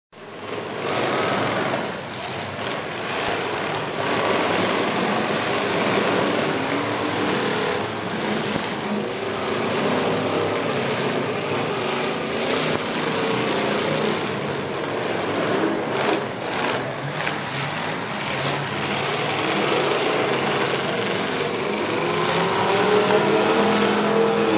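Engines of several demolition-derby cars revving and running together as they ram one another, their pitch rising and falling, with a few sharp crashes now and then.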